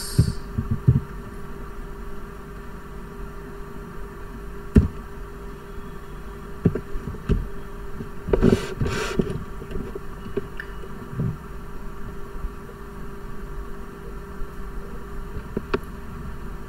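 Steady low electrical hum with scattered soft clicks and taps. A few keyboard keystrokes come near the start, and two short rushes of noise come about eight and a half seconds in.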